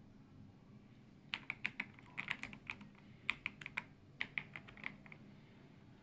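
Typing on an AULA F98Pro mechanical keyboard with transparent polycarbonate keycaps: about two dozen quick keystrokes in three short runs, starting a little over a second in and stopping around five seconds in.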